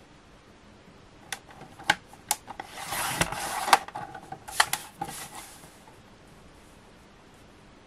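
Tonic paper trimmer cutting a sheet of card: a few sharp clicks, then the blade carriage scraping down its rail for about a second and a half, followed by more clicks and a shorter scrape as the cut-off strip is taken away.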